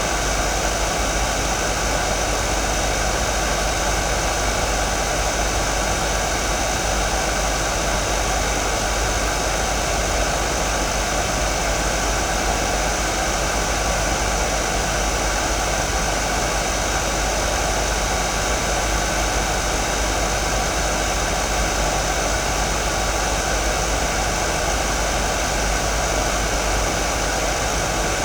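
Hair dryer running steadily: an even rush of blown air with a few faint steady tones inside it.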